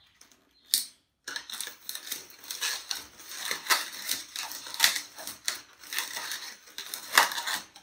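Latex modelling balloon being twisted and squeezed by hand: an irregular run of rubber squeaks and crackles, after a single sharp snap about a second in.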